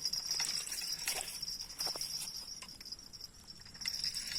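Insects, cricket-like, chirping in a steady high pulsing trill, with a few faint clicks.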